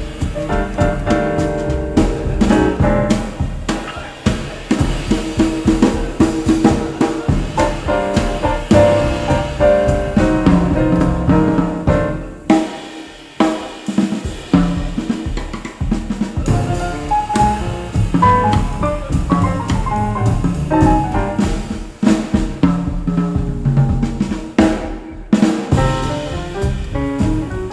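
Music with a drum kit (snare, bass drum, rimshots) and pitched instruments, played back over hi-fi loudspeakers as a sound demo. The music thins out and drops in level briefly about 13 seconds in.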